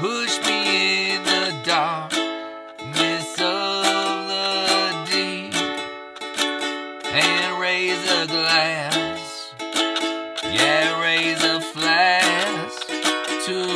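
Ukulele strummed in a steady rhythm of chords, with a man's voice singing along in phrases of a couple of seconds each.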